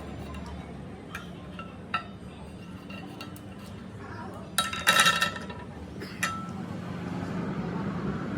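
Metal tools and parts clinking against each other, with a louder ringing metallic clatter about five seconds in, over a steady low hum.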